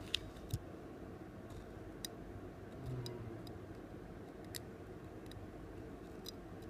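Scattered small, sharp clicks and taps of hand tools working on a smartphone's parts, irregularly spaced, over a steady low hum.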